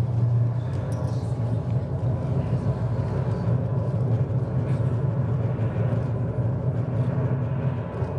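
Steady, loud low engine-like rumble, played through the hall's loudspeakers as the soundtrack of a projected video.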